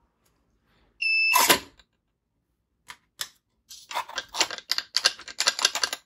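The lock's buzzer gives one short high beep as the RFID card is read, and the servo motor immediately drives the latch with a brief whirr. A quick run of irregular clicks and scrapes follows near the end.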